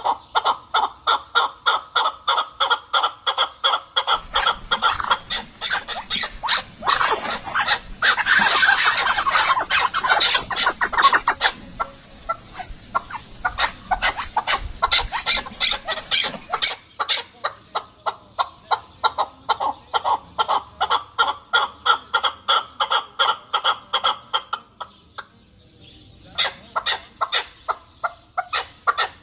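Fowl-like birds calling in a fast, even run of clucking notes, about three or four a second. The calls grow denser and louder about a third of the way in and break off briefly a few seconds before the end.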